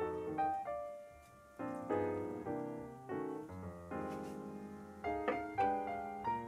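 Background piano music: a gentle melody of single notes and chords, each note striking and then fading.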